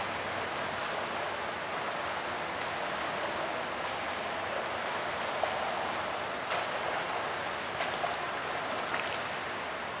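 Fountain water splashing steadily, an even rush of falling water, with a few brief sharper splashes in the second half.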